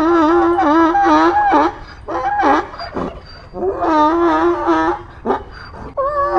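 Donkey braying: a loud, brassy hee-haw call whose pitch wavers, breaking off and starting again several times.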